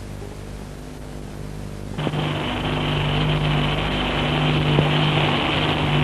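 Steady electrical hum from an old videotape soundtrack, then about two seconds in a loud hiss with a low steady hum comes in suddenly and slowly grows louder.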